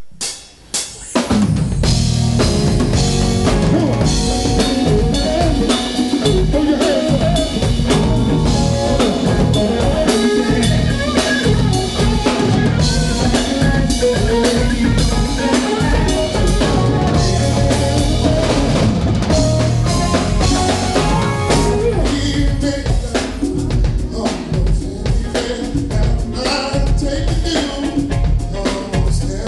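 Live band playing, drum kit prominent with snare rimshots and bass drum over bass and other pitched instruments. The music starts with a couple of hits then kicks in fully about a second in and runs on loud and steady.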